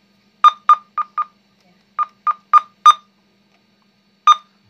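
Icom IC-2100 FM transceiver giving short key beeps as its buttons and knob are worked: nine in all, two quick runs of four and one more near the end, over a faint steady hum. No squelch hiss comes through between the beeps, the sign of its fault: the squelch opens silent and the radio cannot receive.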